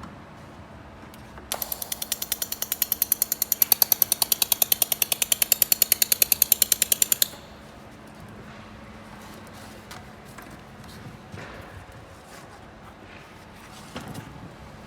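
Laser welder firing in pulses on thin steel: a rapid, even string of sharp ticks, about eight or nine a second, starting a second and a half in and cutting off sharply about six seconds later.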